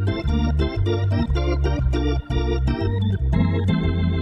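Hammond B3 organ playing a big-band-style passage over a steady bass line. Short clipped chords, each starting with a sharp key click, give way to a held chord about three seconds in.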